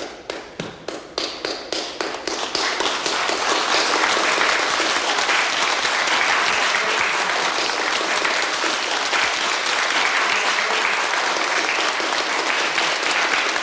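Audience applauding: a few separate claps that swell within about three seconds into full, steady applause.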